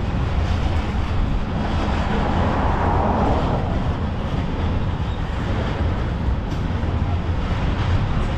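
Freight train of tank cars rolling past, a steady rumble of wheels on rail.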